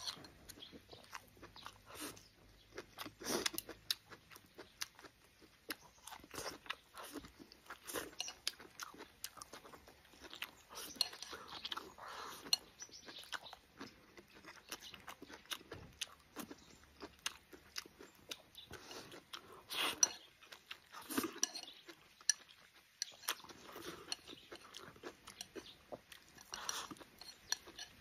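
A person chewing and crunching mouthfuls of stir-fried pickled sour long beans with meat and lettuce, with repeated sharp mouth clicks and bites.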